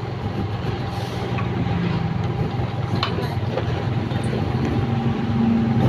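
Motorcycle engine running steadily while riding slowly along a street: a low hum with a faint steady tone above it, over road noise.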